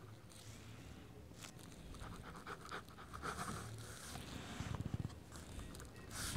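Faint scratching of a pen tip on paper as a signature is written in quick strokes, over a low steady hum.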